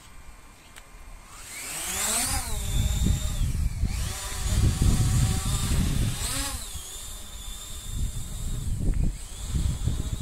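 Xiaomi FIMI A3 quadcopter's propellers spinning up for takeoff. Their whine rises in pitch about a second and a half in, then settles to a steady hover tone, with a second brief rise and fall about six seconds in. Gusts of wind noise rumble on the microphone.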